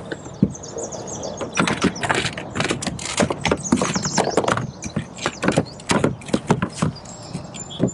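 Irregular clicks, knocks and rattles of fishing gear being handled on a kayak, coming thick and fast after the first second or so.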